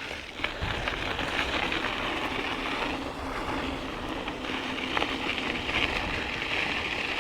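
Vintage VW bus driving, with a steady mix of engine and road or wind noise and a faint hum that fades out about two-thirds of the way through.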